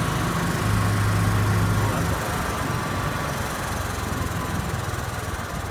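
Rented golf cart running along a road, a steady low engine hum that eases off about two seconds in, with road and wind noise.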